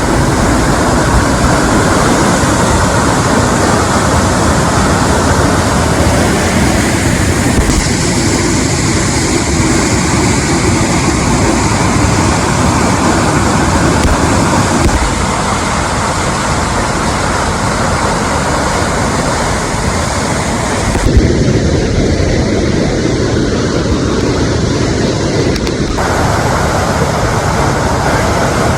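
Steady rushing of a waterfall, changing in tone abruptly several times from cut to cut.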